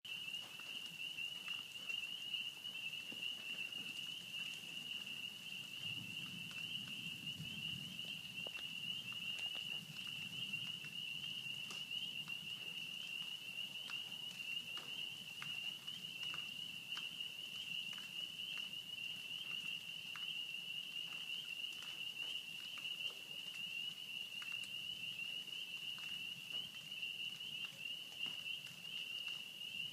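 Rain pattering and dripping, with a faint low rumble of distant thunder about six seconds in. A steady high-pitched ringing tone, from an unidentified source, runs under it throughout.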